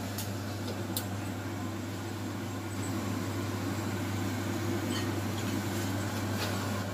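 Steady low hum of an electric glass-top cooktop heating a pan of water with sliced lotus root, with a faint hiss that grows a little louder over the second half. There are two faint clicks near the start.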